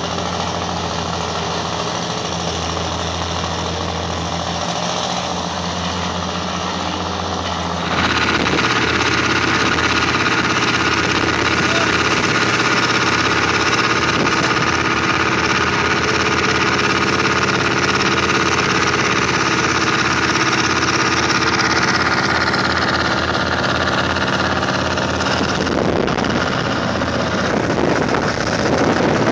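Engine of construction-site machinery running steadily during a concrete pour. It gets louder about eight seconds in.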